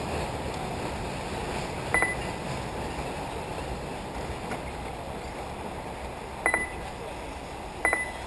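Short, high electronic beeps from a race lap-timing system, three of them a few seconds apart, over steady wind noise.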